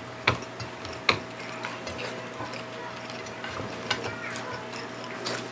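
Close-miked eating sounds of people eating rice and fish with their hands: two sharp mouth clicks about a second apart near the start, then softer smacking and chewing.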